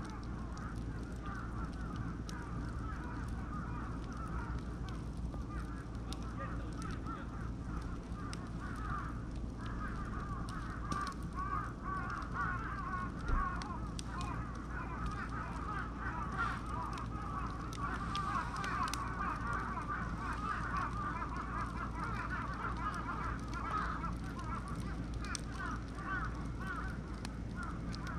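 Beech and oak wood fire burning, with scattered sharp crackles and pops over a continuous fast-warbling squeal.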